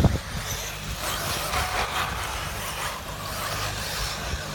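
1/8-scale electric off-road RC buggies running on a dirt track: a hiss of electric motors and tyres on dirt that builds about a second in and eases off near the end.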